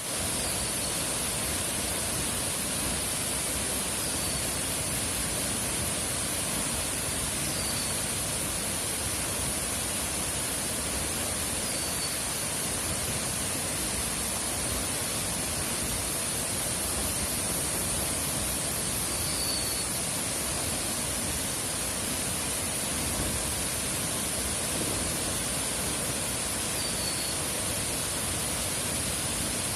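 Steady roar of the Tumpak Sewu waterfall, an even rushing noise with no breaks. A steady high-pitched buzz sits above it, and a few faint short chirps come a few seconds apart.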